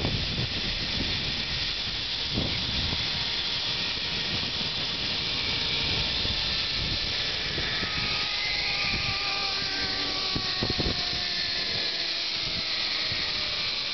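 Zipline trolley running along the steel cable: a steady hiss, with a faint whine that slowly falls in pitch during the second half.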